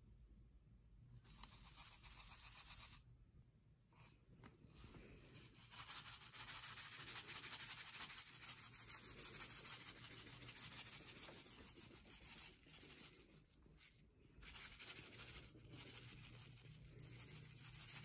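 Small scent-booster beads shaken out of a plastic bottle onto carpet: a fine hissing rattle of many little grains, in long pours with short pauses about 3 and 14 seconds in.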